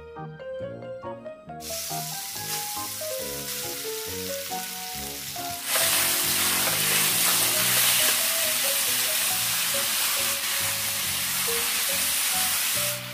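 Sliced pork neck sizzling and frying in a hot pan as it is stir-fried with a wooden spatula. The sizzle comes in about a second and a half in and gets much louder and brighter about six seconds in, over steady background music.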